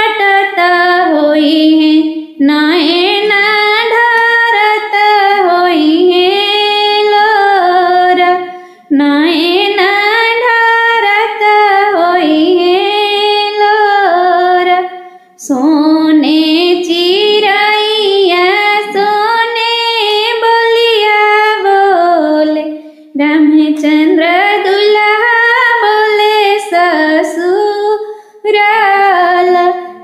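A woman singing a North Indian folk song for a son's wedding in long, flowing phrases, with brief breaks between them about every six to seven seconds.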